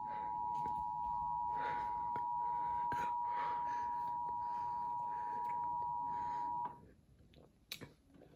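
Emergency Alert System attention signal: two steady high tones sounding together, cutting off sharply about seven seconds in. A single click follows near the end.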